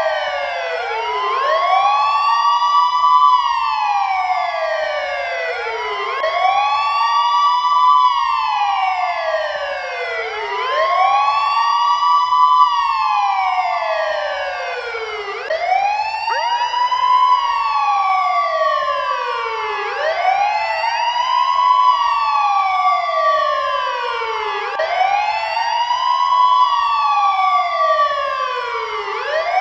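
Ambulance siren sounding a slow wail. The pitch rises quickly, holds briefly at the top, then slides slowly back down, repeating about every four and a half seconds, six times over.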